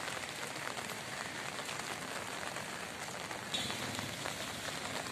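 Steady rain falling on the streets and rooftops, a constant hiss with many small drop ticks. A brief high-pitched sound cuts in about three and a half seconds in.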